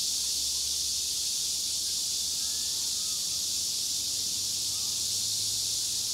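Steady high-pitched chorus of cicadas buzzing in the trees, unbroken at an even level, with a few faint chirps under it.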